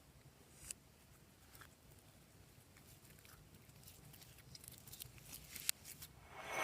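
Glossy slime being worked by hand, making faint scattered sticky clicks and pops that come more often over the last couple of seconds and end in a louder squelch.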